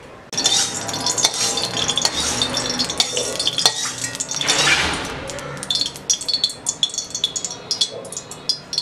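Hot oil crackling and spitting in an aluminium karahi, starting suddenly just after the beginning. A stream of liquid is poured into the pan about four and a half seconds in, making a brief rushing sizzle, and is followed by many sharp crackles and pops.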